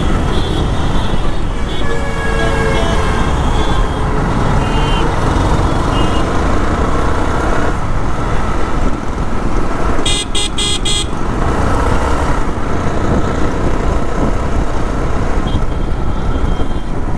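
Motorcycle ride through heavy road traffic: a steady rumble of engine and wind noise, with vehicle horns honking around. About ten seconds in, a horn gives a quick run of short toots, the loudest sound here.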